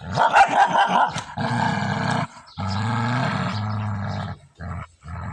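An animal growling in a series of drawn-out calls, each up to about two seconds long, with short breaks between them.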